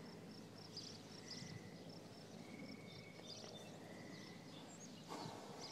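Faint outdoor ambience: short high chirps repeating several times a second and short trills about a second and a half apart, with a brief soft rush of noise near the end.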